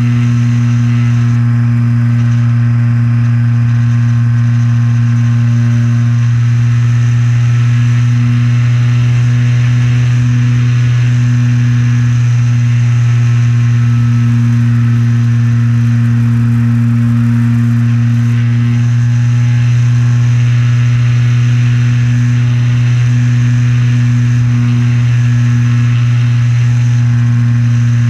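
Electric motor and propeller of an Art-Tech Wingtiger RC trainer plane, heard close up from a camera on the wing. The plane is in flight, and the drone holds a steady pitch with only slight wavering.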